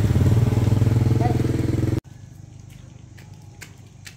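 Motorbike engine running steadily at a constant pitch, cutting off abruptly about two seconds in. A quiet stretch with a few sharp clicks and taps follows.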